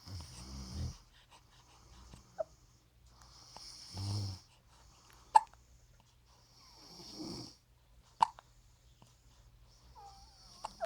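A grandmother snoring in slow, regular breaths, three low rasping snores about three and a half seconds apart with breathy hiss between them. Two short, sharp sounds cut in, about five seconds in and again about eight seconds in.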